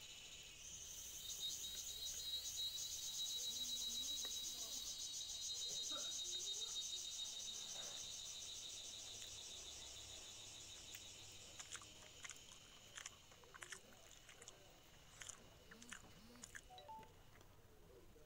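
A loud, high, rapidly pulsing insect buzz swells about a second in and fades away by about twelve seconds. After it, close-up chewing and crunching of fried pork, with a string of short sharp crunches.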